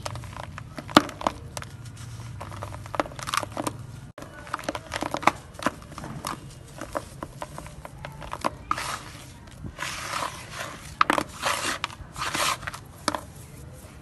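Dry, dusty grey sand being crumbled and sifted through fingers into a bucket: scattered gritty crackles and clicks, with several longer hissing pours of falling grains near the end.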